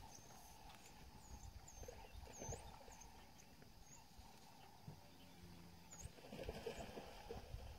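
Near silence: faint outdoor ambience, with several faint, short high chirps over the first few seconds and one more about six seconds in.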